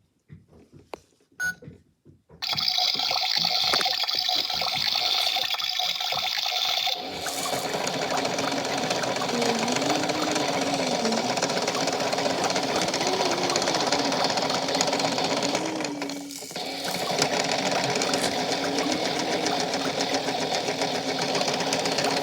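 Toy washing machine running its wash cycle. A few light clicks are followed by a steady, water-like rushing sound that starts a couple of seconds in. About seven seconds in it changes to a steady mechanical churning with a slowly wavering tone, which dips briefly about sixteen seconds in.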